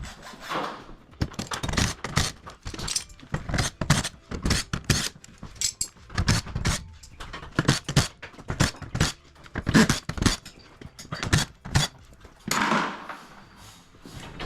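Irregular clanks, knocks and clinks, two or three a second, of metal tools and hardware being handled and set down.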